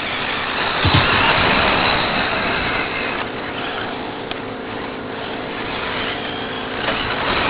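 Radio-controlled 4x4 short course trucks running on a dirt track. The noise swells as they pass about a second in, then stays steady.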